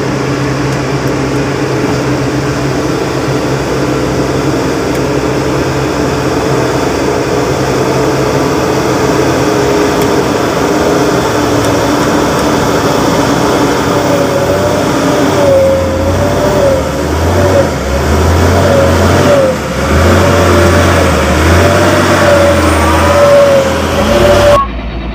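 Diesel engines of coal-hauling dump trucks running under load on a muddy haul road: a steady drone, then from about halfway a louder, wavering engine whine and rumble as a truck comes close. The sound cuts off abruptly just before the end.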